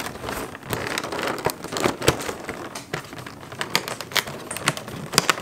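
Cardboard advent calendar door being pried open and the packaging inside handled: irregular clicks, taps and rustles.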